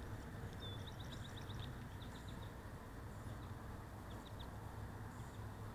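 A small songbird singing a quick run of short high chirps about a second in, with a few more scattered chirps later, over a low steady rumble.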